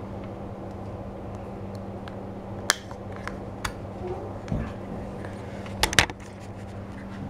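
Scattered sharp metallic clicks and taps from fingers working the ring-pull tab of a small cat-food can. A loud double click about six seconds in is the loudest point, all over a steady low hum.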